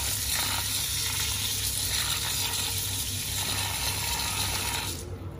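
Kitchen tap water running onto rice in a stainless steel mesh strainer as the rice is rinsed by hand; the water cuts off near the end.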